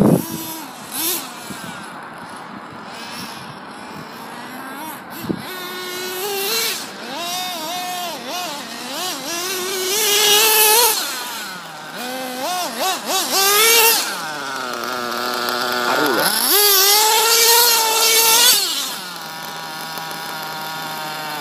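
Small nitro engine of a Losi 2.0 RC buggy revving up and down in repeated bursts as the buggy is driven, then settling to a steady idle near the end as it stops.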